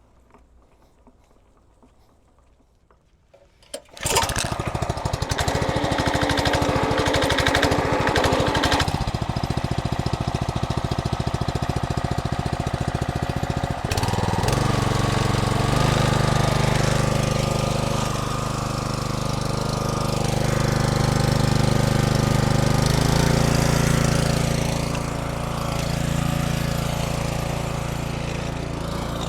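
Gas pressure washer's small engine starting up about four seconds in and running steadily with a fast pulsing beat. About ten seconds later its sound shifts into a steadier, deeper hum.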